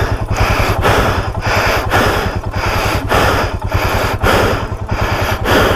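Motorcycle engine running at low revs, its firing a fast, steady pulse, with a rushing noise that swells and fades about twice a second.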